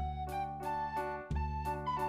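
Instrumental background music with a steady beat of about three strokes a second over a held bass line.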